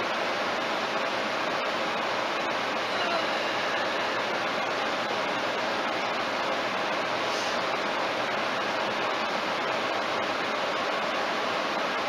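Steady road and wind noise inside a car cabin at highway speed, about 95 km/h, picked up by a dashcam: an even rushing hiss with no change in level.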